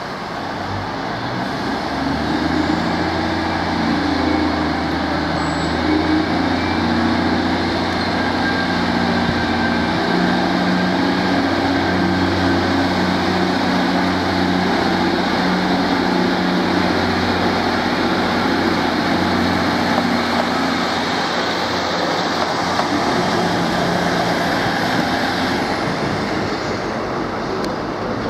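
Class 153 single-car diesel multiple unit's Cummins engine running under power as the train moves off. The engine note is steady, builds over the first couple of seconds and eases near the end.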